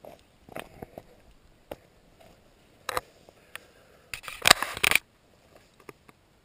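Handling noise from a handheld camera being moved: a few scattered clicks and scrapes, then a louder half-second of rubbing and scraping about four seconds in.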